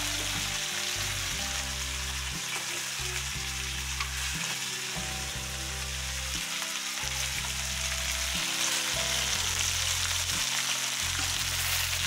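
Tilapia steaks frying in oil in a skillet, a steady sizzle that grows a little louder in the second half.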